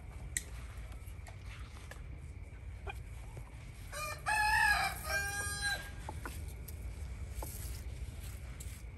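A rooster crowing once, about four seconds in, for just under two seconds, over a steady low background rumble.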